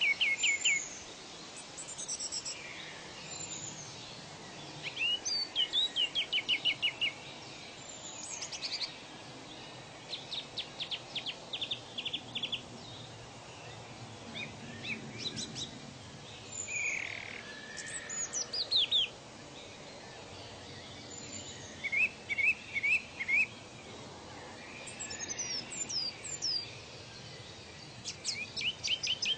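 Several wild birds calling over a steady background hiss: quick trills of repeated chirps and short falling whistles, coming every few seconds from different birds.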